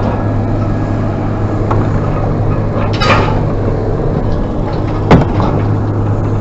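A vehicle engine running steadily with a low hum, with two sharp knocks about three and five seconds in.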